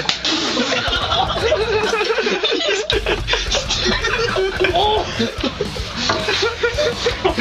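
People laughing together, giggling and chuckling with overlapping voices.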